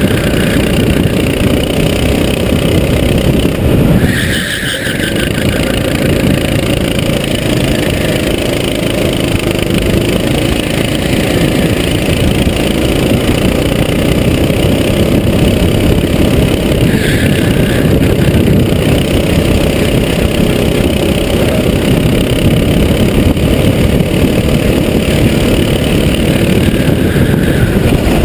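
Go-kart engine running hard at racing speed, heard from on board the kart. The engine note dips briefly about four seconds in as the throttle is lifted, then picks up again.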